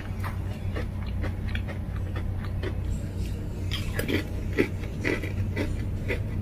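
Potato chips being bitten and chewed close to the microphone: a run of crisp crunches, about two a second, loudest about four seconds in, over a steady low hum.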